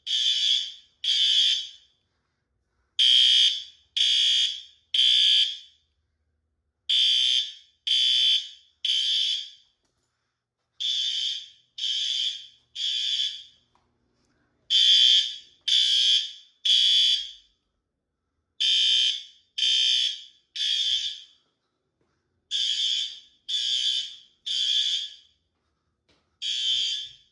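System Sensor L-series fire alarm horns sounding the temporal-three evacuation signal. Each group is three short, loud blasts followed by a pause, repeating about every four seconds. This is the standard pattern that calls for a building to be evacuated.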